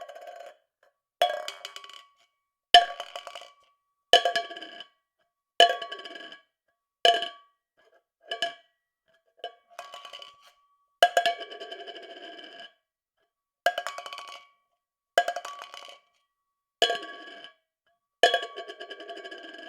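A tin can dropped over and over, about once every second and a half: each fall is a sharp metallic clang with a ring, followed by quick bounces and rattling. A couple of the falls rattle on for a second or more.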